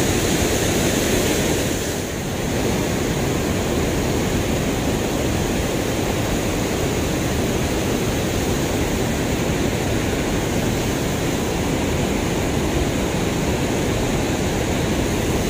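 Steady rush of river water pouring over a low concrete weir and churning in the foam below it.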